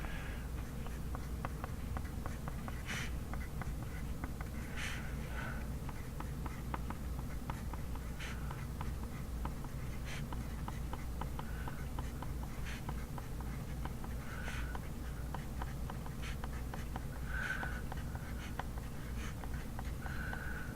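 Handwriting on paper while copying kanji: many short scratchy strokes and light taps at an irregular pace, over a steady low room hum.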